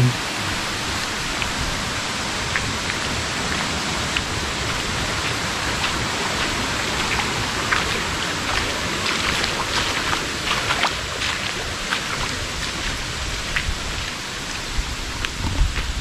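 Steady hiss of water, with scattered light ticks and taps.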